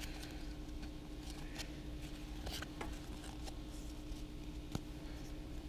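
Faint rustle and a few light clicks of a stack of Pokémon trading cards sliding against each other as they are shuffled in the hands, over a steady low hum.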